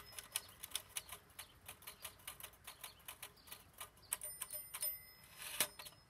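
Typewriter keys struck in a fast, uneven run of clacks, with one louder stroke near the end.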